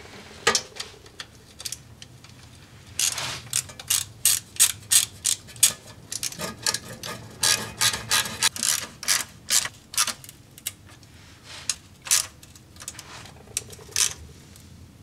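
Hand ratchet clicking in quick runs, with short pauses, as the transmission oil pan bolts are run down snug on the first pass before torquing.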